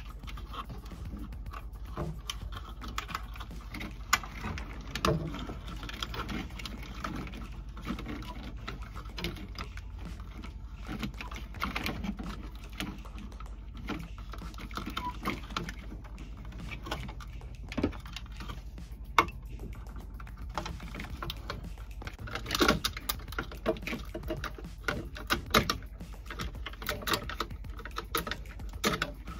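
Hands handling and pulling wiring and crimp connectors in a marine air conditioner's control box: irregular small clicks, taps and rustles, busier in the last few seconds, over a steady low hum.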